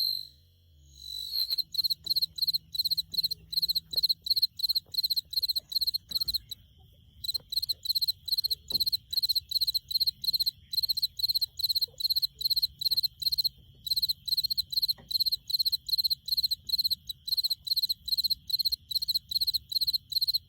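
Cricket chirping: short, high-pitched chirps repeated evenly at about three a second, starting about a second in. The chirping pauses briefly twice.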